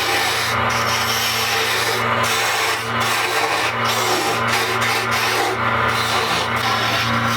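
An electric woodworking machine cutting or scraping maple: a steady motor hum under a dense rasping hiss that briefly eases about once a second.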